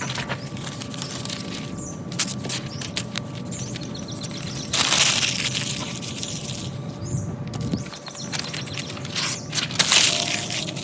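Crumpled newspaper crackling and rustling in repeated sharp crackles, with a louder rush of noise about five seconds in.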